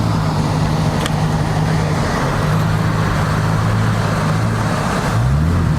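Ford Mustang engine running steadily at low revs, its pitch rising about five seconds in as it is revved up.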